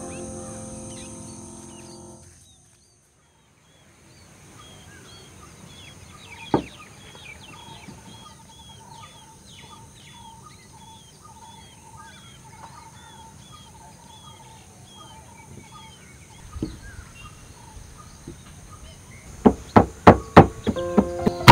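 Birds calling in the background, with a repeated chirp about twice a second and a trill, and two separate knocks. Near the end, a wooden pestle starts pounding strawberries in a wooden mortar, about three strikes a second.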